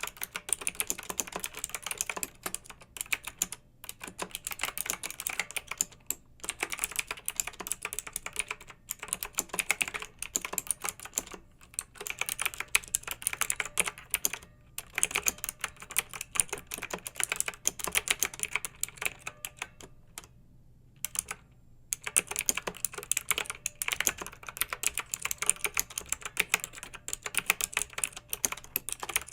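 Clicky mechanical keyboard typing: rapid runs of keystrokes broken by short pauses, the longest about two seconds, a little past the middle.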